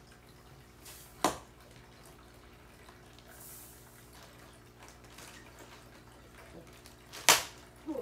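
Two sharp clicks, one about a second in and a louder one near the end, over a faint steady hum.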